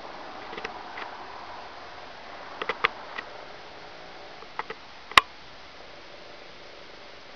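Steady faint hiss with scattered small clicks and crackles, a few in quick pairs, and one sharp louder click about five seconds in.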